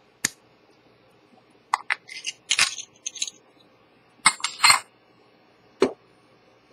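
Handling noises from a metal pocket watch case worked by hand at close range: sharp clicks and small metallic clinks. There is one click just after the start, two busy clusters of clicks and rattles in the middle, and a single knock near the end.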